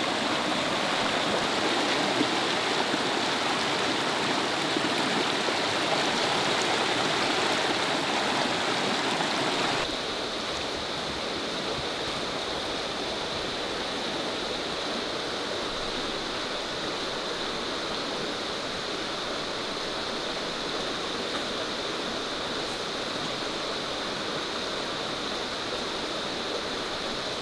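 Steady rushing of running water, like a forest stream, with no distinct events; it drops abruptly in level about ten seconds in and then continues evenly.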